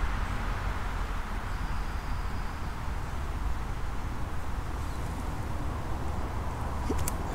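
Steady, uneven wind rumble on the microphone at the water's edge, with a single sharp click a little before the end.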